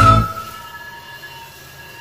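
Background music with flute and a steady bass fades out just after the start, leaving a quiet gap with a few faint held tones.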